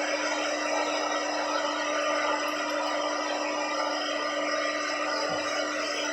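Handheld hair dryer running steadily: a constant rush of blown air over a steady motor whine.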